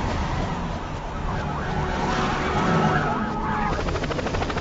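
Police siren wailing, rising and falling in pitch, over a steady rumble of car engines and traffic. The whole soundtrack is played in reverse.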